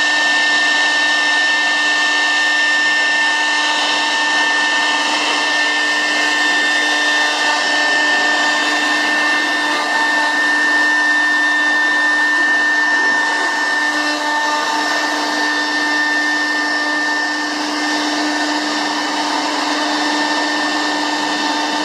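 CNC router spindle running steadily with a high whine over a noisy hiss, milling a solid pine door.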